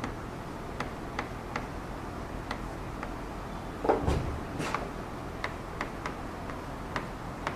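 Stylus tapping and clicking on the glass of an interactive display board during handwriting, in sparse, irregular ticks. There is a louder knock about four seconds in.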